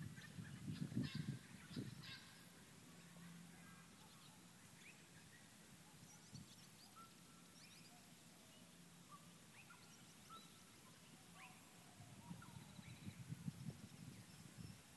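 Hoofbeats of a ridden Standardbred horse on grass: a quick run of dull thuds in the first two seconds as it passes close, dying away, then building again near the end as it comes back. Faint bird chirps can be heard in between.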